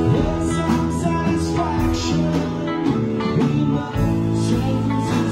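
Live rock band playing: electric guitar, bass guitar, keyboard and drum kit, with held guitar notes and bends over a steady drum beat.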